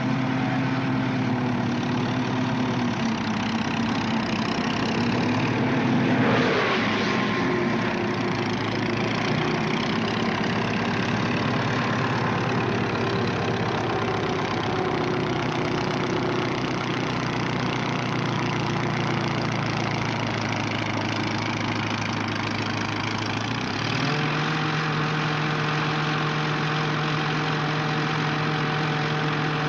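Tank engine running with a steady drone, a brief louder swell about six seconds in, and a step up in engine pitch near the end as it revs higher and holds.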